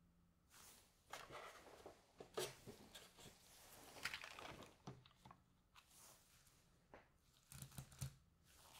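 Soft handling noises of a plastic yogurt cup in disposable-gloved hands: short crinkling, rustling stretches and a sharp click. Near the end come a few light knocks as the cup is set down on a small digital kitchen scale.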